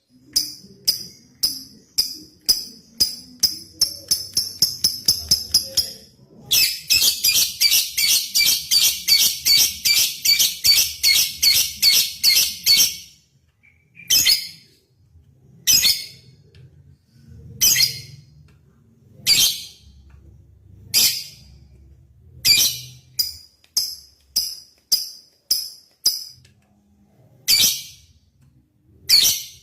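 Lovebird calling: a string of sharp, high chirps that quickens over the first few seconds, then a long unbroken chattering trill of about six seconds (the 'ngekek' call, a challenge to a rival), then single sharp chirps spaced a second or two apart.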